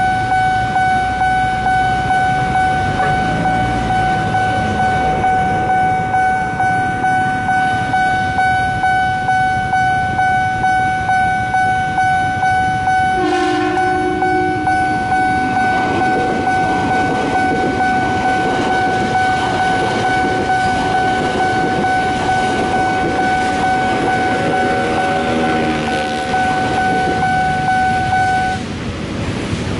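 Railway level-crossing warning bell ringing in rapid electronic dings, about two a second, until it stops near the end. About 13 seconds in, an electric KRL commuter train gives a short horn blast, and it then passes with a rising rush of wheel and rail noise.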